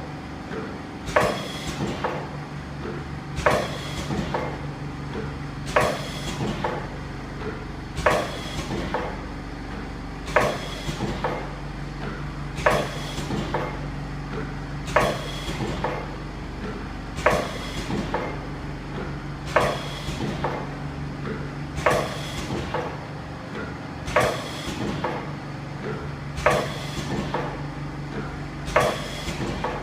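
Automatic turntable ultrasonic tube filling and sealing machine running, with a steady low hum and a sharp mechanical clack about every two and a half seconds as it cycles.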